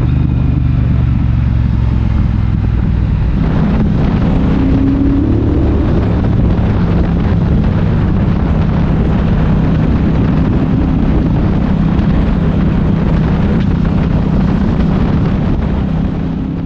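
Triumph Bobber's 1200 cc parallel-twin engine running under way, loud and steady. Its pitch rises briefly about four seconds in as it revs, then holds, and it fades out near the end.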